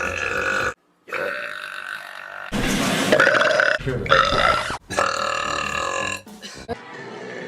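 Several loud belches by women, one after another, with abrupt cuts between them.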